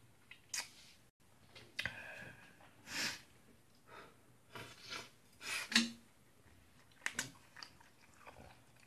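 A person eating spaghetti close to the microphone, with chewing and mouth noises in short, separate spurts. A few sharp clinks come from a fork and spoon against the metal pan.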